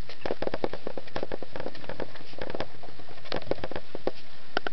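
Chihuahua puppies scampering on carpet: irregular soft pattering and crackling clicks, several a second, with no barks or yips.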